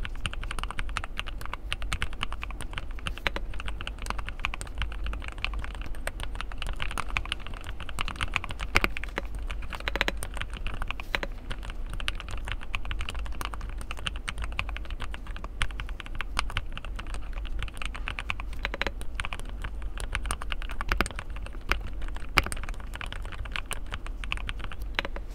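Fast, continuous typing on a JD Jingzao Q1 mechanical keyboard fitted with Hourun Zhou switches, a dense stream of key clicks at an even level.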